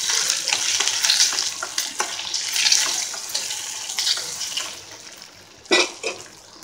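Ice apple pieces and onions frying in oil in a steel kadai, sizzling with clicks and scrapes as they are stirred, with the chilli powder and salt just added; the sizzle dies down after about four and a half seconds. A single sharp knock sounds near the end.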